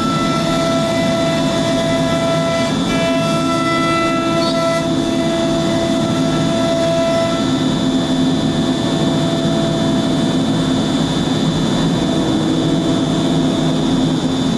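MultiCam CNC router spindle cutting a wooden sheet, a loud steady whine of several pitched tones over a continuous rush, with some tones dropping out or changing partway through as the head moves along the cut.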